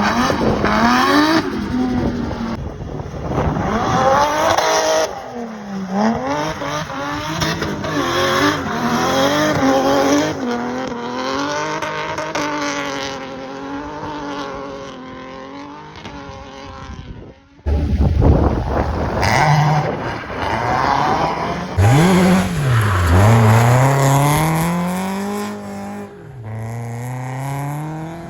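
Car engines revving hard, their pitch climbing and falling again and again, mixed with tyre squeal. The sound cuts out abruptly about two-thirds of the way through and comes straight back with more revving.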